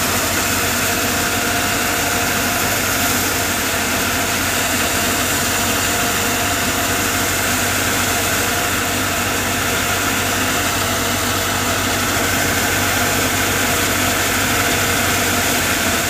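Paddy thresher running steadily as paddy is fed in, its drum and blower whirring, powered by a Swaraj 960 FE diesel tractor engine working under load.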